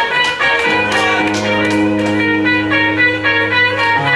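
Rock band playing live without vocals: electric guitar picking notes over held bass notes and drum cymbals, the bass note changing near the end.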